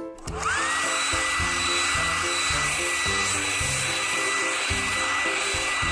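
Hair dryer switched on about a third of a second in: its whine rises quickly to a steady pitch over a steady rush of air, then runs on at that pitch. Light background music plays underneath.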